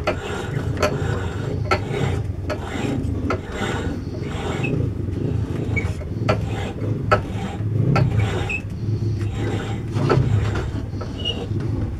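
Turnell & Odell lathe running slowly while a reamer opens a change gear's bore to finished size: a steady low hum with a sharp click repeating roughly once a second.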